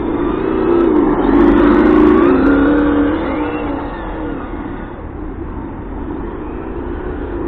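Electric 1/8-scale RC car running, its speaker sound module playing a simulated engine note that revs up for about the first three seconds and then eases off.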